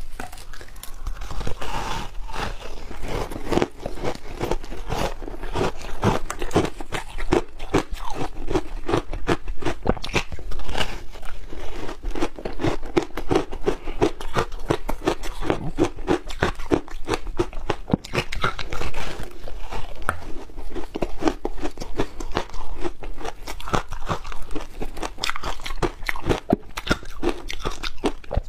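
Close-miked crunching as a person bites and chews blocks of frozen, layered shaved ice made with matcha and milk powder. The dense, rapid crackle of breaking ice runs on without a pause.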